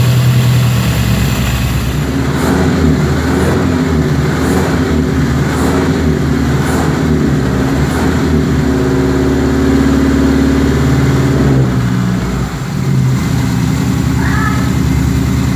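Chevrolet S10 2.4 four-cylinder engine in a Willys Jeep running steadily, with a brief dip about twelve seconds in. The owner thinks it is missing on one cylinder, probably from badly made plug leads.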